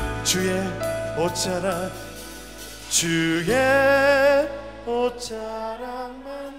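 Worship band music: an Alleva Coppolo LG5 five-string electric bass holds low notes under a sustained melodic line that wavers with vibrato around the middle.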